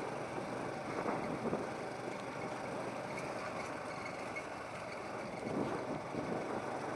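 TVS Apache RTR 180 single-cylinder motorcycle riding along at a steady pace, its engine running under an even rush of wind and road noise on the microphone.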